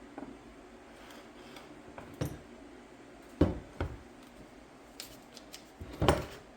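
Fuel cap of a McCulloch ProMac 55 chainsaw being unscrewed and lifted off by hand: a scatter of plastic clicks and knocks, the loudest about three and a half and six seconds in.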